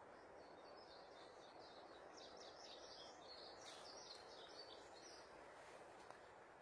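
Faint bird chirping, a quick run of short high notes over a steady low hiss, dying away about five seconds in.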